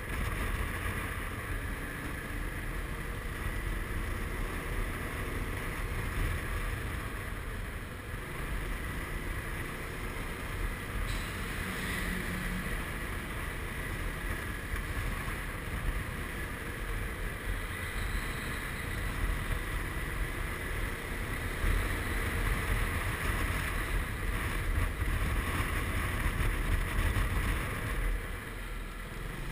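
Riding noise from a Suzuki Burgman 400 maxi-scooter at town speed: a steady low wind rumble on the microphone over the single-cylinder engine and tyre noise.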